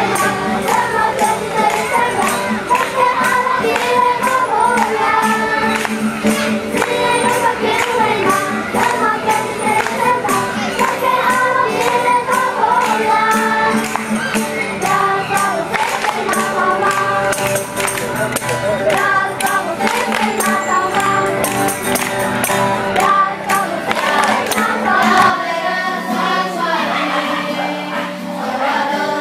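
A group singing a song with a tambourine shaken on the beat. About 25 seconds in it gives way to a different choir song without the low accompaniment.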